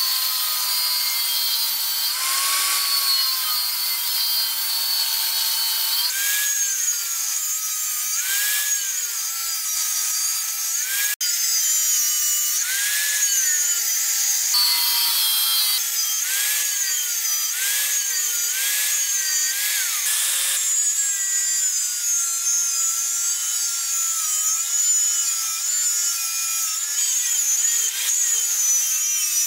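Electric angle grinder cutting and grinding coil-spring steel. The motor's pitch dips and rises again and again as the disc bites into the metal and eases off, over a steady hiss of grinding.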